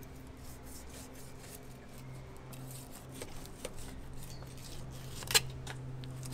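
8-inch fillet knife slicing along a barracuda's rib cage, with soft crackling and snipping as the blade rides over the rib bones, and one sharper click about five seconds in. A steady low hum runs underneath.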